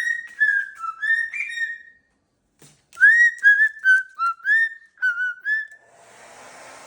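Moluccan cockatoo whistling: a run of short gliding notes, a brief pause, then a second run of falling and rising notes. Near the end a hair dryer starts blowing on its fan setting with a steady rushing hum.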